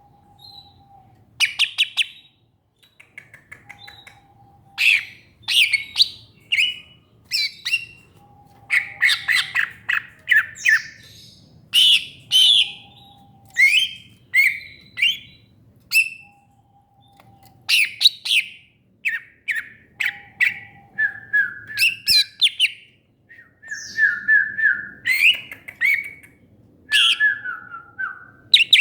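Cucak ijo (green leafbird) singing in quick bursts of varied chirps, squawks and down-slurred whistles, with a short low whistle repeating every few seconds.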